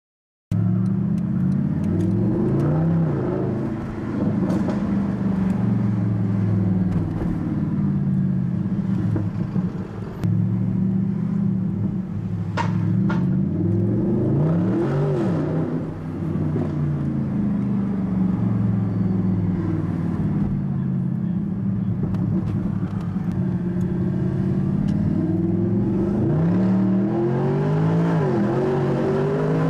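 Mercedes-Benz SLS AMG's V8 with a Capristo aftermarket exhaust, heard from inside the cabin while driving, its note rising and falling with the revs several times. It starts suddenly after a brief silence.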